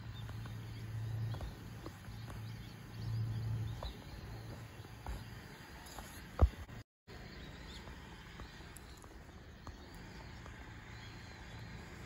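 Quiet outdoor ambience with a low rumble that swells twice in the first few seconds. A single sharp knock comes about six and a half seconds in, followed by a moment of total silence where the audio drops out.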